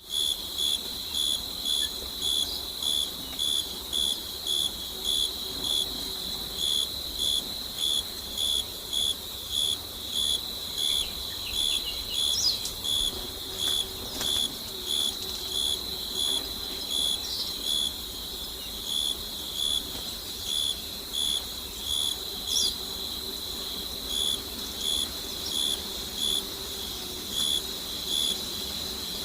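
Night insects, crickets, chirping in an even pulse of about one and a half chirps a second over a continuous high trill. A few short high calls stand out now and then.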